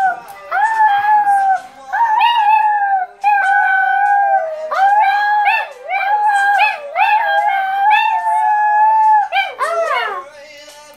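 Small dog howling along to a song: a string of long, high, held howls, each about a second, with short breaks between them, ending in a wavering downward slide shortly before the end.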